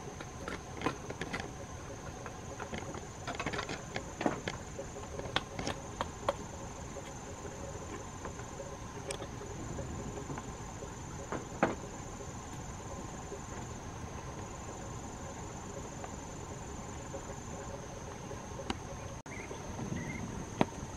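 Insects chirring steadily in the forest, with scattered light clicks and knocks, most of them in the first few seconds and one near the middle.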